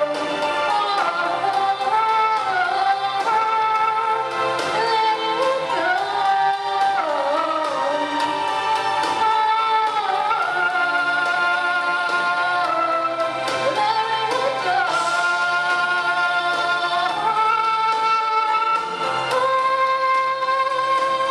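Female solo pop vocal sung into a microphone over a backing track, with several long notes held for a few seconds each.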